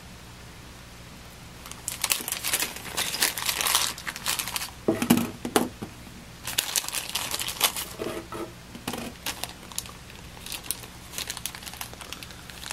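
Thin clear plastic parts bag crinkling and rustling in the hands in irregular bursts, starting about two seconds in, as it is opened and small servo parts are taken out.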